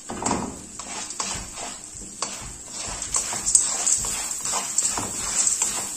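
Slotted spatula stirring raw popcorn kernels in melted butter in a non-stick kadhai: uneven scraping and rattling of kernels against the pan over a faint steady sizzle. The kernels are heating and none has popped yet.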